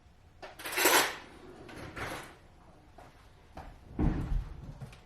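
Handling noises: a brief rustling swish about a second in, then scattered knocks and a heavier low thump near the end.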